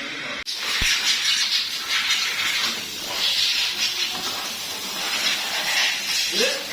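A loud hiss of escaping gas, swelling and easing several times.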